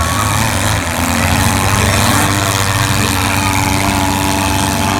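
Several four-cylinder demolition derby car engines running loud and steady.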